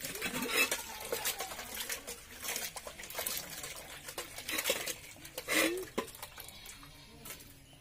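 Hands washing cut fish pieces in water in a steel bucket: irregular splashing and sloshing that dies down near the end.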